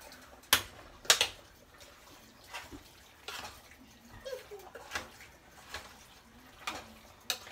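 Metal serving spoon knocking and scraping against a cooking pot while scooping pasta in Alfredo sauce: a string of sharp clanks, the two loudest close together near the start, then lighter ones about once a second.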